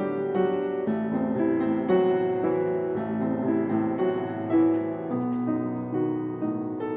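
Solo acoustic upright piano played in a flowing, unbroken stream of overlapping notes, mostly in the middle register.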